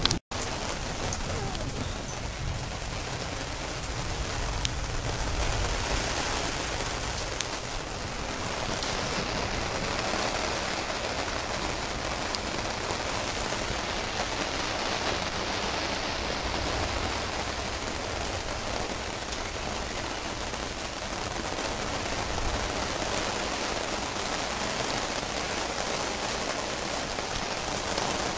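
Heavy rain falling steadily during a thunderstorm, with a few sharp taps of single drops in the first seconds.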